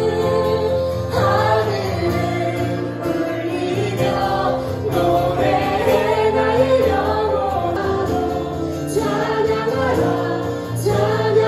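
A congregation singing a Korean worship song, led by a singer with an acoustic guitar.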